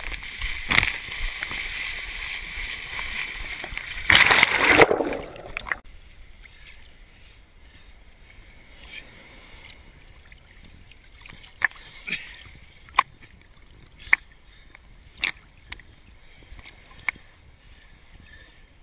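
Small sea waves washing over a camera at the waterline: loud surging and sloshing for the first six seconds, strongest about four to five seconds in. Then quieter lapping water at the surface, with sharp little slaps of water against the camera housing every second or so.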